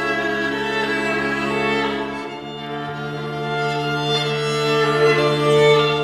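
String quartet of two violins, viola and cello playing long, sustained bowed chords. The low part moves to a new note a little over two seconds in, and the music swells louder near the end.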